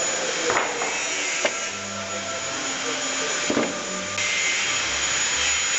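Steady whirring of workshop machinery, with three short sharp knocks; the whirring gets louder and brighter near the end.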